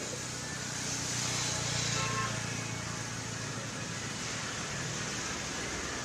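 Steady road traffic noise with a low rumble, swelling briefly about one to two seconds in as a vehicle passes, then settling.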